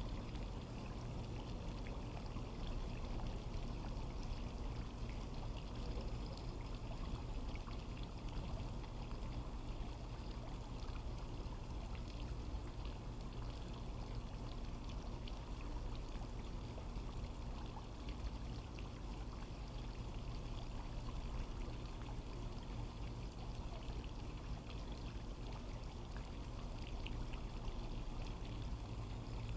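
Water running and splashing steadily in a swimming pool, an even rush with a low steady hum underneath.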